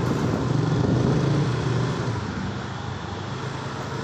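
Steady engine hum and road and wind noise of a motorised two-wheeler in motion, heard from the pillion seat, getting a little quieter about halfway through.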